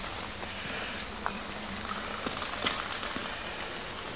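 Steady hiss of water spray from fire hoses, with a few faint ticks.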